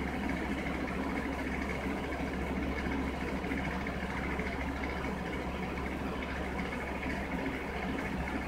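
A steady low mechanical hum with a faint high whine above it, unchanging throughout.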